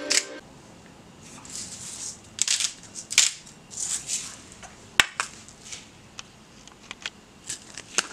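Seasoning being sprinkled over shrimp in a ceramic bowl: a series of short rustling shakes, then a sharp click about five seconds in and a few lighter clicks.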